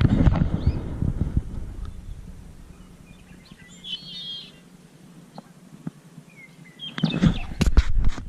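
A bird chirps briefly about four seconds in, between stretches of low rumbling and knocking handling noise at the start and near the end.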